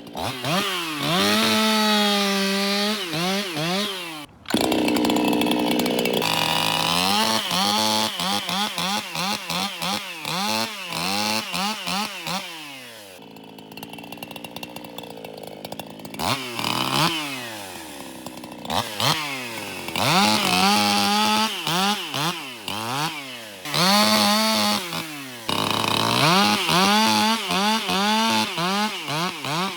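Echo CS-4910 50 cc two-stroke chainsaw, performance-modified by 307 Performance, cutting elm: the engine revs up and drops again and again, with a quieter, lower-pitched stretch about halfway through.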